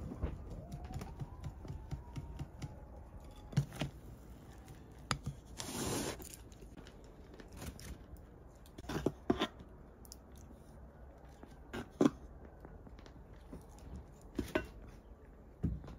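A metal spoon and a metal scoop worked in a glass mixing bowl of batter and flour: scattered clinks and scrapes, with a short rushing scrape about six seconds in.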